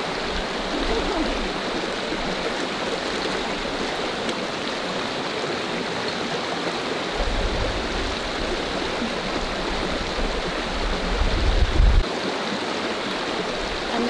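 Shallow river flowing over gravel, a steady rush of water. A low rumble comes in twice, once around the middle and more strongly near the end.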